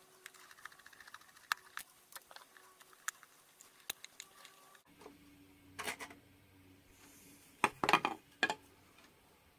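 Screwdriver turning out the screws on the back of a plastic analog multimeter case, making many small rapid clicks and ticks. About six seconds in and again near the end, a few louder plastic knocks and rattles as the rear cover comes off and is set down.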